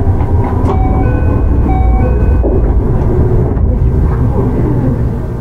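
Keio 8000 series electric train running, heard from inside the car: a steady rumble of wheels on rails. Over it, the whine of its Hitachi GTO-VVVF inverter steps up and down in pitch for a couple of seconds, then stops.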